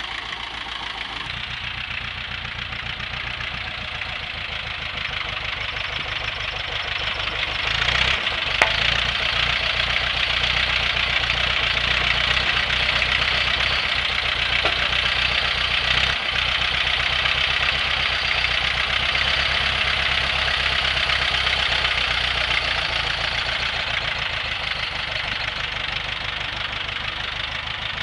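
Ursus C-360 tractor's diesel engine running while its front loader drives up to a silage pile, cuts out a block and lifts it; the engine grows louder in the middle and eases off near the end. A couple of sharp knocks stand out, one about eight seconds in and one about sixteen seconds in.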